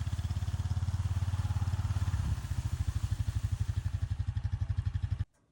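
An engine running at a steady idle, a fast even low pulsing that cuts off suddenly near the end.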